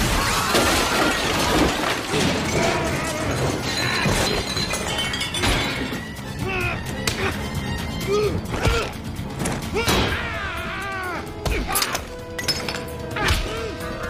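Action-film soundtrack: score music under glass shattering, crashes and hits, with sharp impacts coming thick and fast in the second half.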